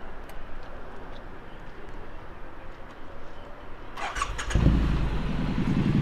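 A Triumph Street Scrambler 900's parallel-twin engine being started: the electric starter whirs briefly about four seconds in, the engine catches half a second later and settles into a steady idle.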